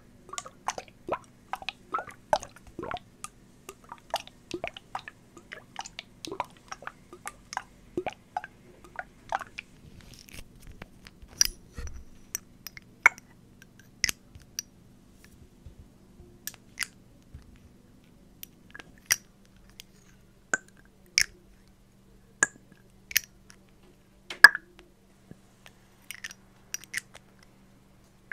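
Close-up handling of a plastic water bottle: a quick run of sharp clicks and crackles, thinning after about ten seconds to scattered single clicks, over a faint steady electrical hum.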